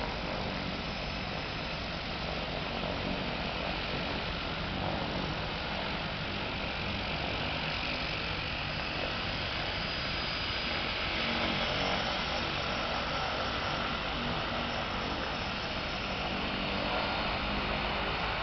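Engines and propellers of a de Havilland Canada DHC-6 Twin Otter floatplane running steadily as it taxis on the water.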